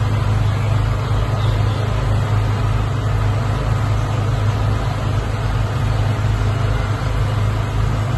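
Steady low hum over a constant rushing noise, unchanging throughout.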